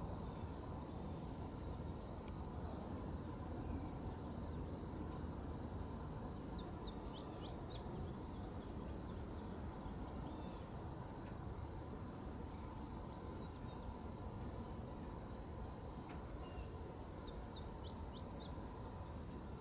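Steady chorus of crickets in a summer field, one even high-pitched trill throughout, with a few faint short chirps about seven seconds in and again near the end.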